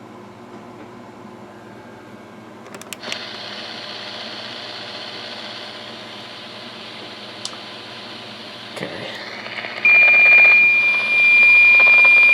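Weather radio sounding a loud, steady, high-pitched alert tone that begins a little under ten seconds in, for the weekly Wednesday test. Before it there is only a low radio hiss with a few clicks.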